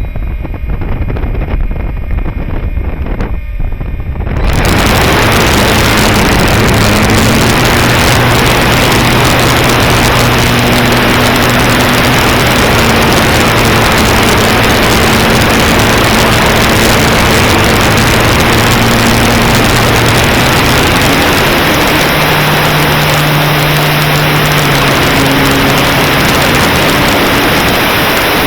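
Strong wind buffeting the microphone, starting suddenly about four seconds in. Under it a faint hum steps up and down in pitch a few times, like a motor changing speed.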